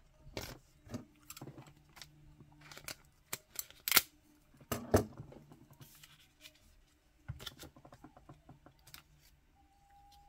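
Trading cards being handled and slid into plastic sleeves: scattered rustles and clicks, with a sharp tap about four seconds in and a quick run of small ticks a little past seven seconds.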